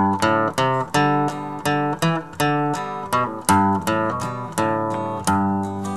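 Acoustic guitar playing the instrumental intro of a country gospel song: picked and strummed chords, about two strokes a second, with ringing notes.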